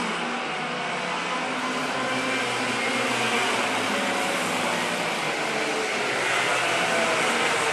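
Racing kart engines running on track, several at once, their pitch rising and falling as the drivers work the throttle.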